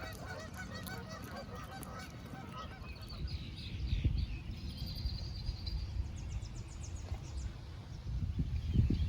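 Birds calling outdoors: a quick run of repeated calls for the first couple of seconds, then higher chirps and trills, over a low wind rumble.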